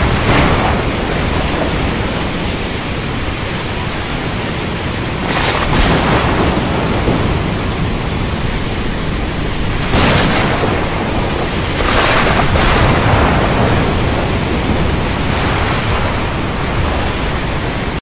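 Thunderstorm: a steady rush of heavy rain broken by sharp cracks of thunder, just after the start, near six seconds, at ten seconds and twice around twelve seconds.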